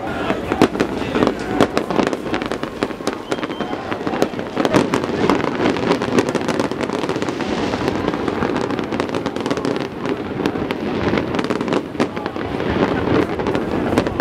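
Fireworks display going off, a dense run of rapid bangs and crackles, over the hubbub of a crowd.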